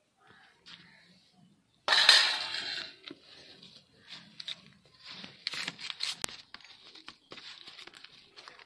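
Hands kneading mashed boiled banana with gram flour (besan) into kofta dough: faint irregular clicks and soft strokes of the mash being worked. A sudden louder noise about two seconds in fades over about a second.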